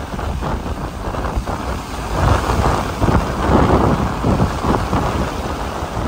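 Wind buffeting the microphone, a low rumbling noise that swells and falls in gusts.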